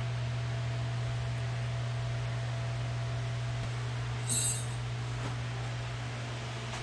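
A steady low hum, with one short, ringing metallic clink a little past halfway.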